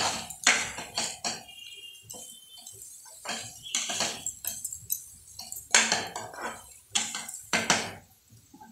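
Metal spatula scraping and knocking against a nonstick kadai as fried potatoes and onions are stirred, in irregular strokes, some in quick pairs, with short pauses.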